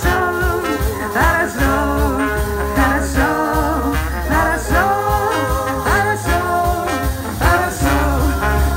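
Live band playing an instrumental passage between sung lines: the trombone carries the melody with sliding notes over bass, drums and guitar.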